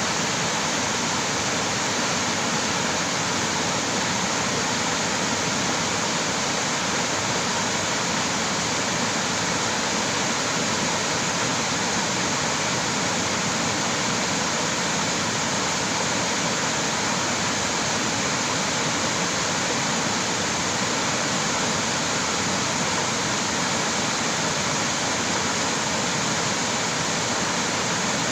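Creek water rushing in a steady, unbroken hiss.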